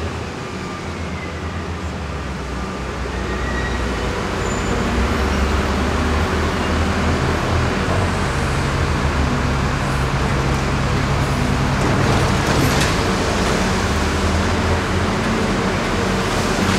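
Diesel engines of heavy track-work machinery, an excavator and a hi-rail crane, running steadily. The sound grows louder a few seconds in, with a brief louder noisy stretch about twelve seconds in.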